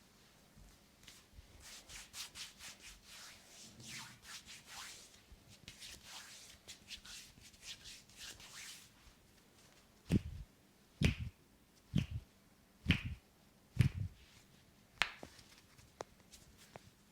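A barber's hands in a head massage: brisk rubbing strokes over the head for several seconds, then about seven sharp hand slaps roughly a second apart.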